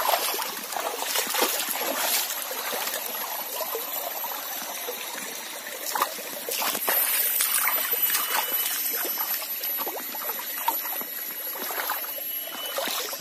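Shallow forest stream trickling over rocks, a steady watery rush, with occasional footsteps and rustles on the leafy bank.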